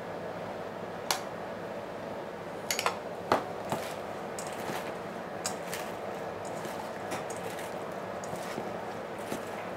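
Salad being tossed by hand in a stainless steel bowl: raw napa cabbage leaves, apple and ham squelching and rustling as they are worked into the dressing. A few sharp metallic clinks against the bowl come in the first four seconds.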